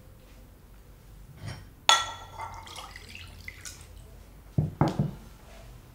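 A small drinking glass clinks against a ceramic bowl with a short ringing tone, then lemon juice is poured from the glass into the bowl. Two dull knocks come close together near the end.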